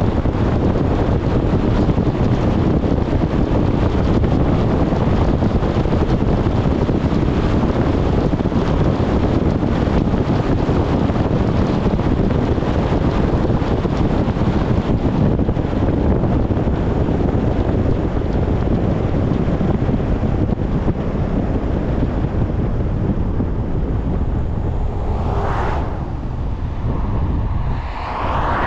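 Steady rushing road and wind noise from a bus driving along, with wind buffeting the microphone. Near the end come two brief whooshes that rise and fall.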